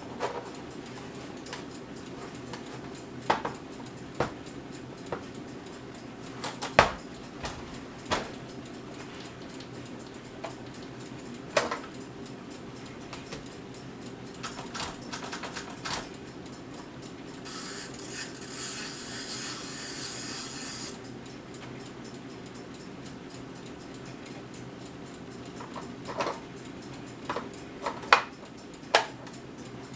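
1966 Smith-Corona Corsair Deluxe portable manual typewriter being worked slowly: scattered single key strikes and mechanical clacks, with a few seconds of rasping noise about two-thirds of the way through.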